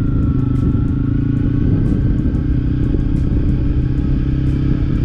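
Motorcycle engine running at a steady speed while riding, its low drone holding an even pitch.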